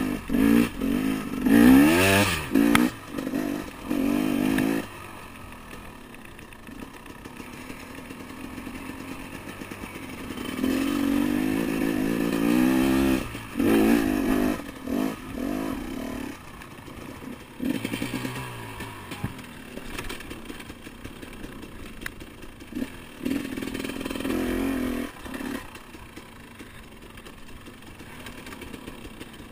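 Enduro dirt bike engine ridden on a trail, revving in repeated bursts as the throttle is opened and closed, the pitch rising under each burst and dropping back to a quieter low run between.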